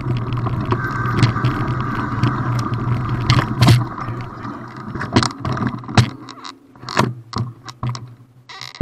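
Mountain bike rolling over a gravel dirt track, a steady rumble of tyres and wind on the bike-mounted camera, which dies away about halfway through as the bike slows to a stop. Then a series of sharp clicks and knocks.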